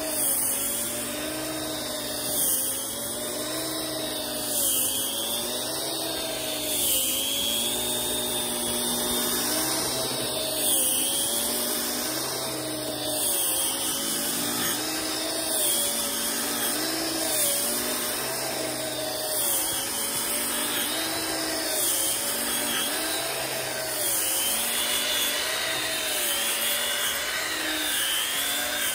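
Battery-powered EGO PH1400 multi-head tool driving a BBA2100 rotating bristle brush through fluffy snow on pavers. The motor runs with a steady whine whose pitch wavers up and down, over the hiss of the bristles sweeping and throwing snow.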